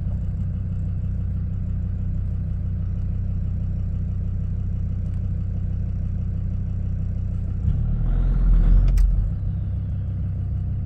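Land Rover Discovery 2 engine idling steadily, heard from inside the cabin. About eight seconds in, the sound swells briefly louder and ends in a sharp click.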